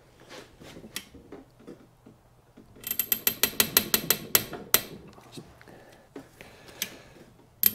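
Ratchet wrench clicking as its handle is swung back between pulls, turning the Ecotec 2.2's main bearing bolts through their final 70-degree angle step. A few faint clicks come first, then a quick run of sharp clicks about three seconds in, and another run begins near the end.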